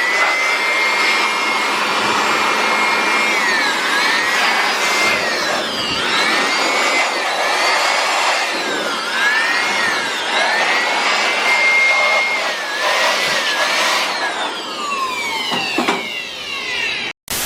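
Handheld electric blower running, blowing dust out of a desktop computer. Its motor whine dips and recovers in pitch again and again, then winds down in a long falling whine near the end.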